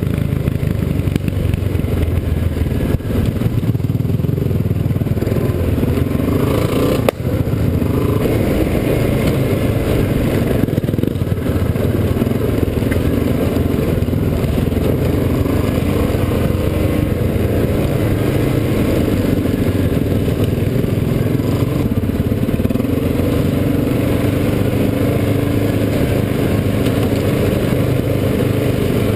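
Quad bike (ATV) engine running steadily while riding a rough dirt trail, with rattling from the bumps and a single sharp knock about seven seconds in.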